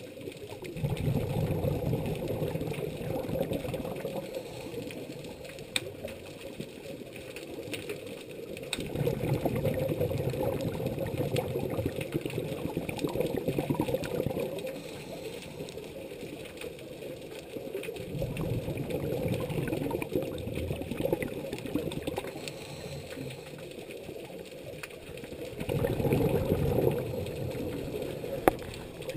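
Scuba diver's regulator breathing underwater: four long rushing, gurgling bursts of exhaled bubbles, with quieter stretches between for the inhalations.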